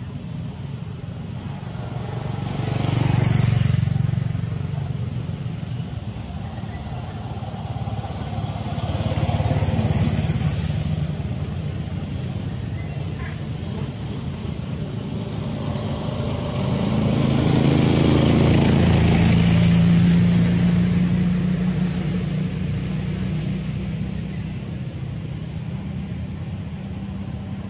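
Motor vehicles passing by three times: each engine sound swells up and fades away, over a steady background engine hum.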